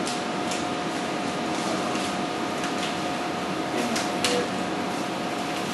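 Paper template crinkling and scraping in several brief rustles as it is handled and eased down from a ceiling, over a steady room hum with a constant tone.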